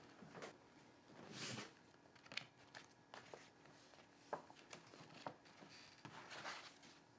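Near silence in a small room, with faint scattered clicks and soft rustles.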